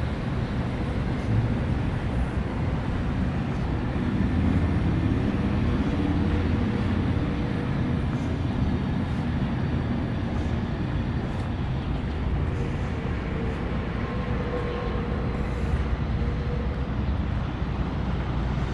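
Steady low rumble of city street ambience with distant traffic.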